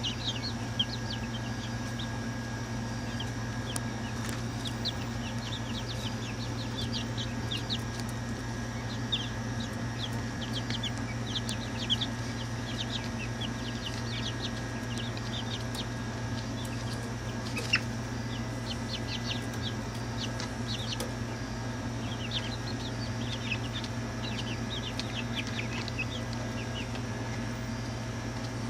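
Young chickens peeping: many short, high chirps scattered throughout, over a steady low hum.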